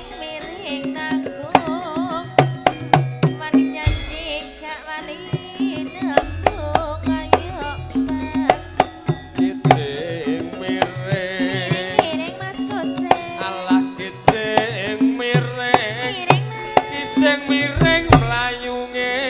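Live Javanese campursari music: hand drums playing a busy, rhythmic pattern with sharp strokes over a repeating low note, and a wavering melody above.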